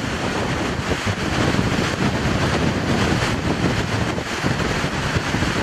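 Wind buffeting the microphone: a loud, unsteady rushing noise.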